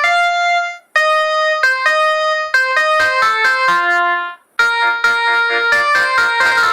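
Samsung SCH-N356 mobile phone playing electronic ringtone melodies through its speaker, quick synthesized notes stepping up and down. The melody breaks off briefly about a second in and again around four and a half seconds in, each time starting afresh.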